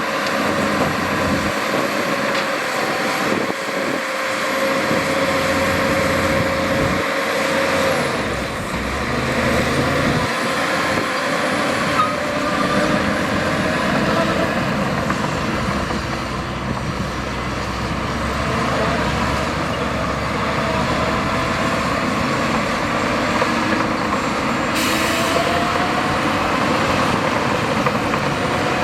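Heavy diesel earthmoving machinery running steadily under load, with engine pitch wavering slowly. A short burst of hiss comes near the end.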